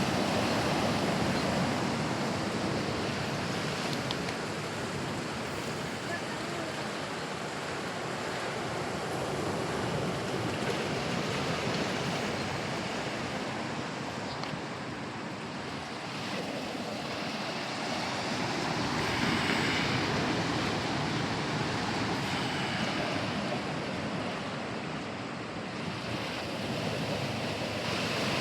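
Sea surf: waves breaking and washing in a continuous rush that slowly swells and eases, loudest near the start and again about two-thirds of the way through.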